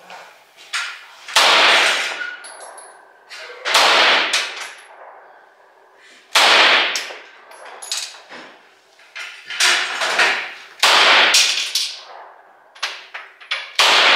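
9mm pistol shots fired one at a time, about five loud reports a second to three seconds apart, each with a short echoing tail. Fainter sharp cracks fall in between.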